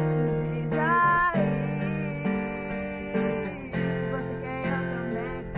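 A teenage girl singing solo over acoustic guitar chords, her voice wavering in pitch on held notes.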